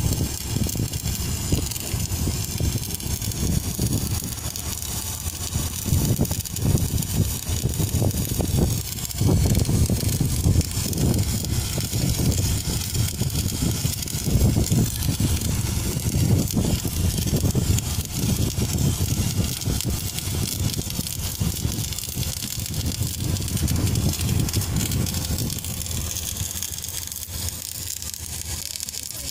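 Wire-feed welding arc of a magnetic automatic pipeline welding carriage, crackling steadily as it welds a steel pipe joint; it eases off a little near the end.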